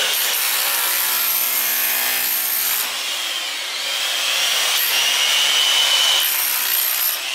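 Electric power saw running and cutting wood, with a high motor whine over the cutting noise. The cut eases off about three seconds in and picks up again.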